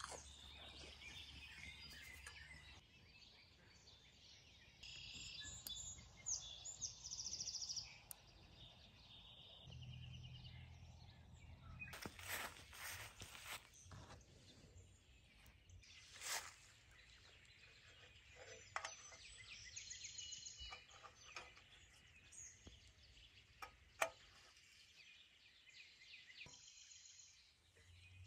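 Faint rural outdoor ambience with birds chirping and trilling now and then, and a few short sharp clicks, one louder near the end.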